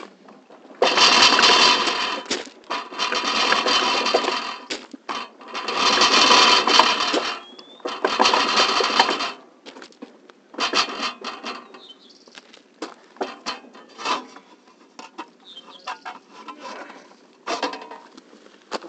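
A 7½-inch-gauge live-steam miniature train: four loud bursts of rattling, hissing noise, each one to two seconds long, over the first half, then only scattered light clicks and knocks.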